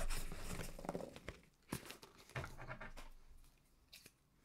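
Packaging being handled and torn open by hand: a run of short rustles, crinkles and light knocks, loudest right at the start and thinning out toward the end.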